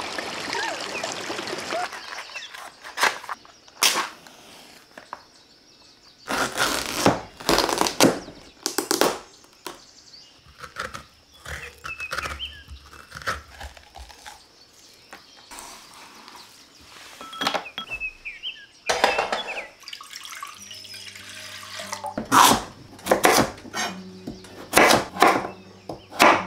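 Large kitchen knife cutting through raw pumpkin on a wooden cutting board: a series of knocks and cracks, some in quick clusters. A few faint bird chirps come in between, and soft music with sustained low notes comes in about twenty seconds in.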